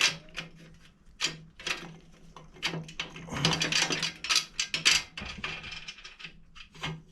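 Hand tools working on metal while the motorcycle's exhaust pipe is taken off: short, irregular runs of sharp mechanical clicking and clinking over a faint steady hum.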